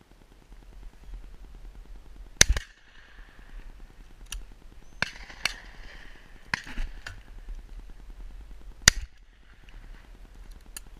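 Two close shotgun shots about six seconds apart, the first a couple of seconds in and the loudest, with several fainter cracks between them.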